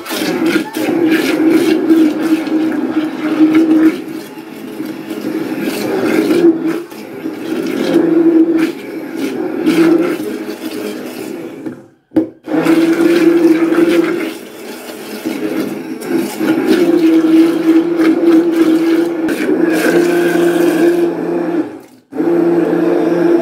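Handheld immersion blender running in a glass jug, chopping chunks of watermelon and boiled beetroot into juice. Its motor hum swells and dips as the blade works through the fruit, and it cuts out briefly about twelve seconds in and again near the end before starting up again.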